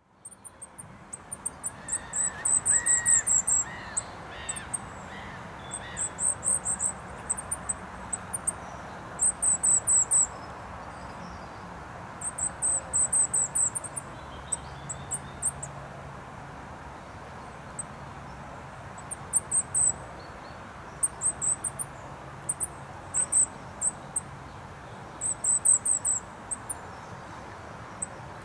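Goldcrest singing: short phrases of very high, thin, rapid notes, repeated every few seconds. Steady traffic noise from a nearby main road runs underneath, and a few lower chirps from another bird come near the start.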